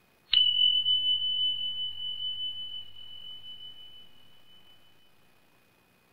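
A single sharp ding about a third of a second in, ringing on as one high, pure tone that wavers slightly as it fades out over about five seconds.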